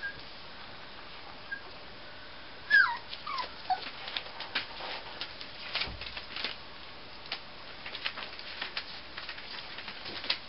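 Six-week-old miniature schnauzer puppies at play: one gives a short, high whimper that slides down in pitch about three seconds in, among scattered light crackles and taps of paws on newspaper.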